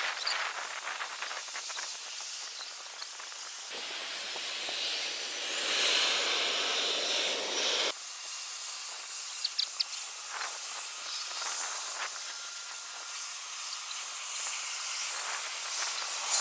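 Steady hissing jet aircraft noise from the runway. About four seconds in it swells into a louder rush, with a high whine that rises and then holds. This cuts off suddenly about eight seconds in, and a few sharp clicks follow.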